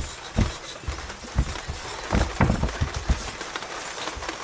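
Irregular dull knocks and rubbing as a motorcycle's generator cover is handled and wiped out with a rag on a workbench, a cluster of knocks about two and a half seconds in, over a steady hiss.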